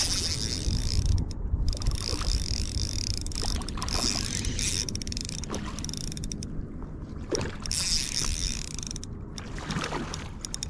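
Spinning reel being cranked to bring in a hooked trout, its gears ticking under steady wind rumble on the microphone.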